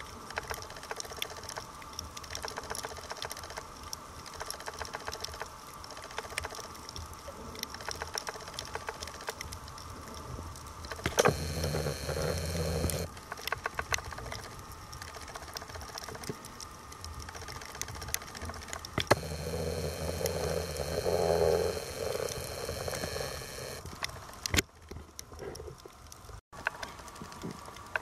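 Underwater sound: a steady fine crackle of many small clicks. It swells twice into a louder low rumble lasting a few seconds, about eleven seconds in and again from about nineteen seconds.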